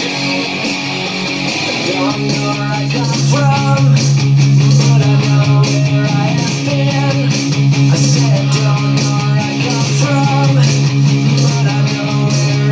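EVH Standard electric guitar strummed with a pick, playing rock chords and riffs over sustained low notes. The sound gets fuller and louder about two seconds in.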